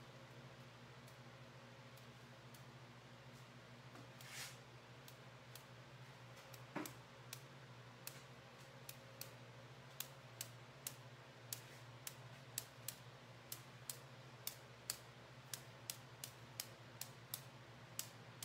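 Sharp ticks of a paint-loaded marbling brush being tapped to sprinkle purple paint onto the size, a few scattered at first, then about two a second from around ten seconds in, over a faint steady hum.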